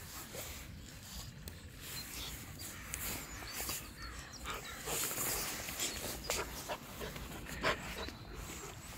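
Central Asian Shepherd (Alabai) puppies panting, with scattered small taps and scuffles and a few brief high squeaks.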